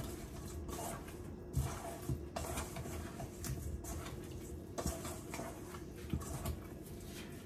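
Raw chicken pieces being mixed by hand with spices in a stainless steel bowl to marinate, with irregular short knocks and squishes of the meat against the bowl.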